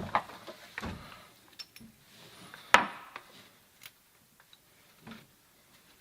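Small plumbing fittings and hand tools being handled: a few scattered clicks and knocks, the sharpest nearly three seconds in.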